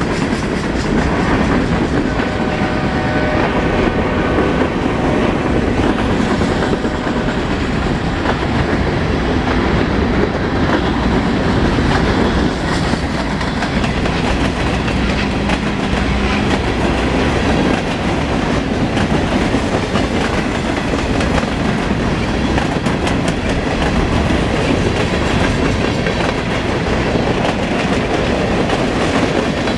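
Norfolk Southern coal train's freight cars rolling steadily past at close range, a loud continuous rumble with the clickety-clack of wheels over the rail joints.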